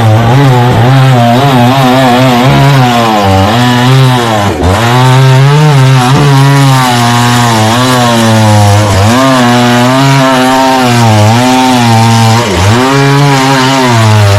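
Chainsaw engine running hard and cutting coconut trunk wood, its pitch rising and sagging over and over, dipping deeply about four seconds in and again near the end as the chain bites.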